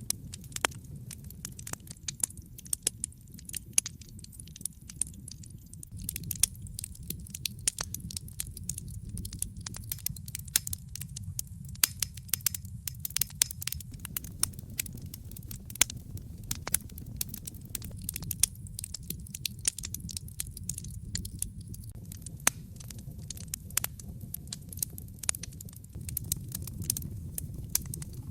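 Wood fire in a fireplace crackling, with irregular sharp pops and snaps over a steady low rumble of flame.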